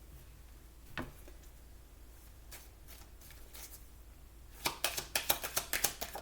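A deck of tarot cards handled and shuffled by hand: a single tap about a second in, a few light flicks, then a fast run of snapping card flicks from about four and a half seconds in.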